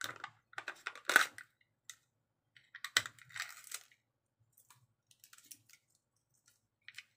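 Foil inner seal on a honey jar being pierced with a plastic spoon and torn back: a run of crinkles and crackles, loudest about a second in and again around three seconds, then scattered faint ticks.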